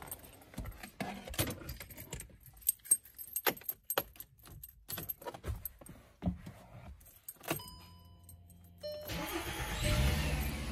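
Keys jangling and clicking as they are handled, then a few steady electronic tones with a low hum as the ignition is switched on. About nine seconds in, the 2012 Volkswagen Passat's engine is cranked by the starter, catches and settles into a steady idle.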